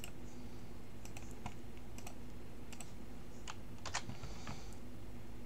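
Irregular keystrokes on a computer keyboard: scattered light clicks with gaps between them, a few coming close together about three and a half to four seconds in.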